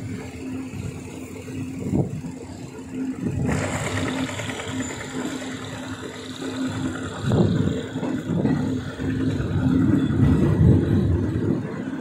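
Passenger train running: a low rumble of the carriage on the rails under a steady hum, with a wider rush of noise setting in suddenly about three and a half seconds in.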